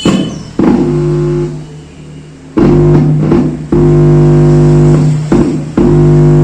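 Loud buzzing hum through a home theatre amplifier's speaker, cutting in abruptly and dying away several times. This is the amplifier's fault noise, stronger from the main 4440 amplifier IC.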